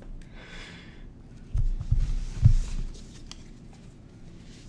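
Booster pack and trading cards being handled on a table: a short rustle of the wrapper, then a few low thumps about halfway through, the loudest near the middle, with faint rustling of cards.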